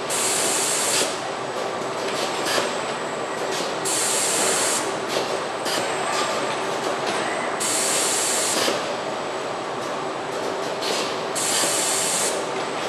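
Automated car body-shop machinery running with a steady noise. A compressed-air hiss about a second long recurs roughly every four seconds, with a few light clicks between.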